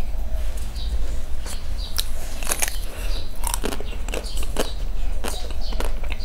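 Biting into the hard black coating of a coconut-ash ice cream bar: a string of sharp, irregular cracks and crunches, with chewing between bites. A steady low hum runs underneath.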